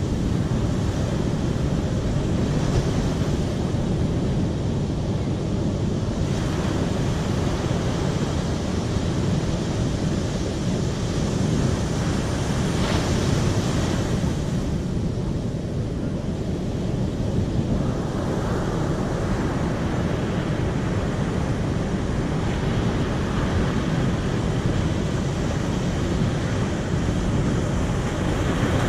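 Steady, loud rushing water, heaviest in the low range, with the higher hiss shifting a few times.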